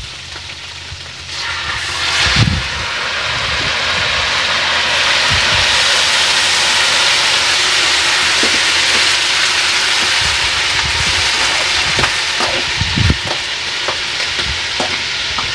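Food frying in pans on a wood-fired stove: a loud, steady sizzle that swells about a second and a half in, with a few knocks of a spoon against the pan.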